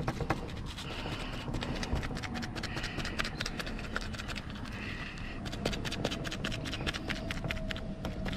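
Paintbrush dabbing and scrubbing liquid waterproofing coating into fibreglass mesh over roof tiles: a quick, continuous run of scratchy brush strokes.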